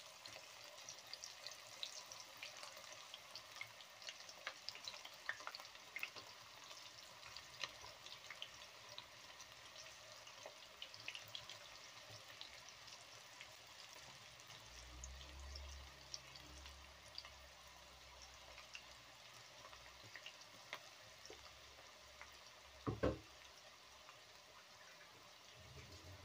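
Okra pakoda in gram-flour batter deep-frying in hot oil in a kadai: a faint, steady sizzle with many small crackles. A single short thump near the end.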